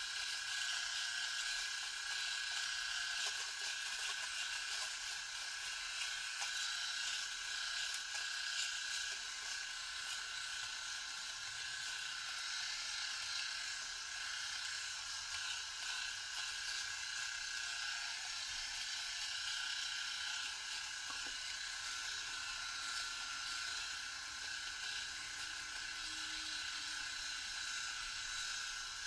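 Cordless three-head rotary electric shaver running with a steady high-pitched buzz as it is pressed against chin and neck stubble, dry-shaving without cream.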